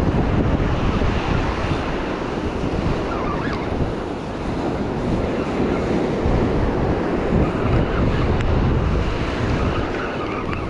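Surf breaking and washing up on a beach, with wind buffeting the microphone in a steady low rumble.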